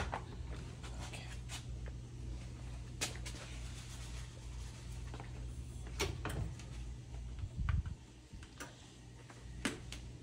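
A few scattered clicks and knocks of kitchen handling, with one duller thump, over a steady low hum.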